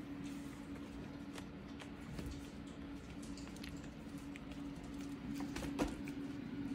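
Puppies shifting about on a vinyl mat and puppy pads: scattered light clicks and soft rustles, with one sharper click near the end, over a steady low hum.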